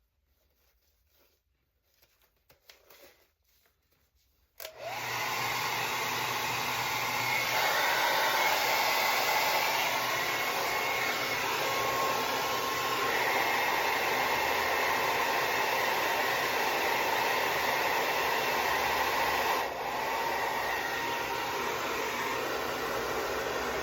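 A hair dryer switched on about four and a half seconds in, then blowing steadily and loudly, with a brief dip in level near the end.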